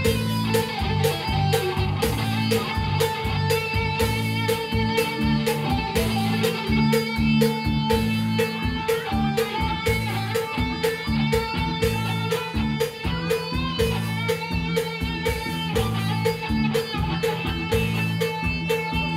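Live band playing electric guitar, bass guitar and drum kit, with a steady beat and a held guitar melody over the bass.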